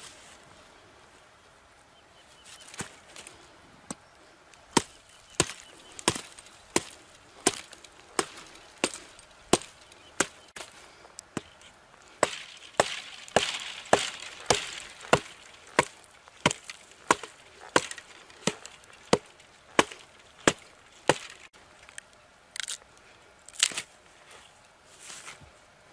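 A large knife being driven down through a stick of green mesquite to split it. It makes a steady run of sharp wooden knocks, about three every two seconds, with a noisier stretch of splitting wood in the middle and a few scattered knocks near the end.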